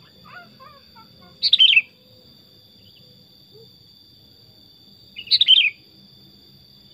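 Sooty-headed bulbul (kutilang) calling: two short, loud phrases of quick falling whistled notes, about a second and a half in and again near the end, with a few fainter chirps at the start.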